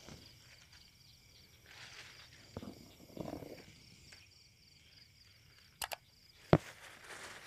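Faint chirping of field crickets throughout, with a few sharp clicks and knocks as a slatted bamboo cricket cage is handled; the loudest is a single sharp click near the end.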